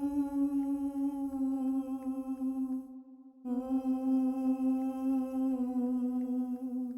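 A man's voice humming one steady note with a nasal, buzzy edge. It is held for about three seconds, breaks off briefly, then is held again, sagging a little in pitch near the end.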